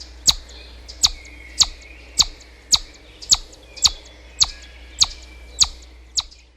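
A bird's short, sharp chirps, repeated evenly about twice a second, with softer calls faintly behind them.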